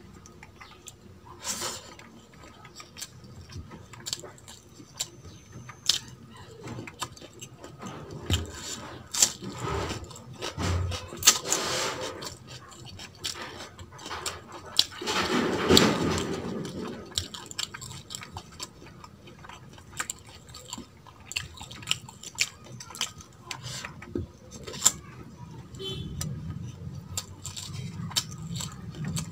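Eating with the hands: fingers mixing and squishing rice and mutton curry on a steel plate, with chewing and many short clicks and jingles from bangles on the wrists. The sound gets louder and denser for a couple of seconds about halfway through.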